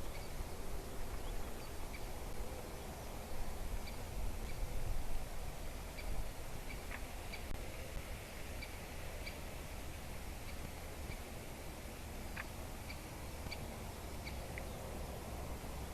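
Great spotted woodpecker giving short, sharp calls, repeated irregularly about one or two a second, over a steady low rumble.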